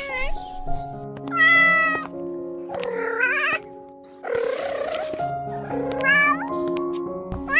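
A cat meowing three drawn-out times over background music with held notes.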